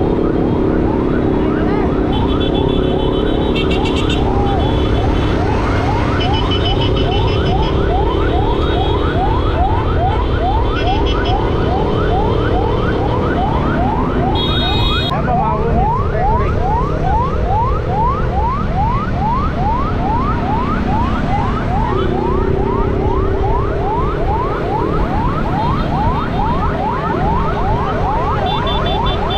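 Rapid yelp siren on a race marshal's motorcycle, rising sweeps repeating about three times a second without a break. Beneath it run the steady drone of the motorcycle engine and wind rush, and short high beeps come and go.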